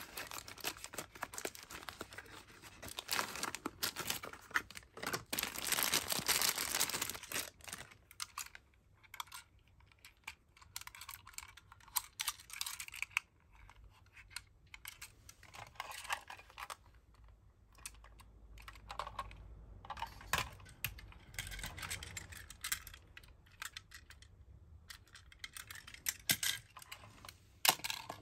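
Close handling sounds of a small cardboard toy-car box being opened and rustled, loudest a few seconds in, followed by scattered light clicks and taps as a die-cast toy car is handled.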